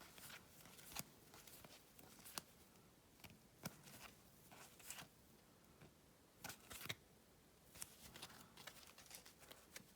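Near silence with faint, scattered clicks and rustles of trading cards being handled, a few taps about a second apart.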